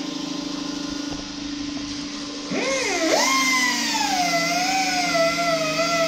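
Handheld grinder with a cutting disc slicing into the old steel bearing race stuck on a front wheel hub, notching it so it can be cracked off with a chisel. Its whine is quieter and lower at first; about two and a half seconds in it dips, then speeds up and gets louder, its pitch sagging and wavering as the disc bites into the metal.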